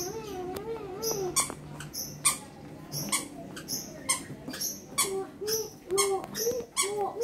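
A cat's repeated short trilling calls, each rising and falling in pitch, strongest in the first second and again near the end, over quick high chirps.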